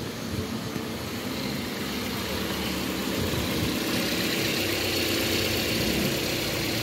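Toyota Corolla Altis four-cylinder petrol engine idling steadily, growing slightly louder, after starting on one click; its earlier hard starting is put down to air in the injectors.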